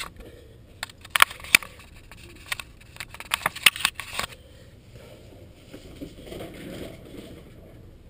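Handling noise from a GoPro camera being set up and adjusted by hand: a quick run of sharp clicks and scrapes from fingers on the camera over the first four seconds, then quieter rustling.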